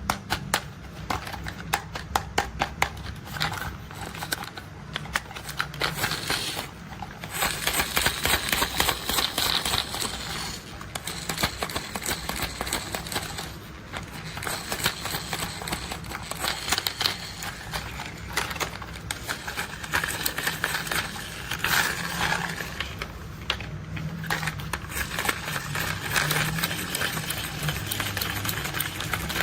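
Plastic toy construction vehicles being handled and worked, giving a rapid, dense run of mechanical clicking and rattling with short pauses.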